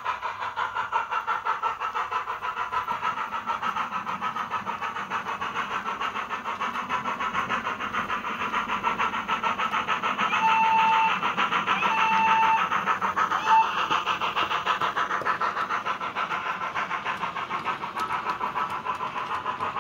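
Model steam locomotive's DCC sound decoder playing steady, rapid exhaust chuffs through the loco's small speaker as it runs. Partway through, the whistle sounds twice in longer blasts, then once more as a short toot.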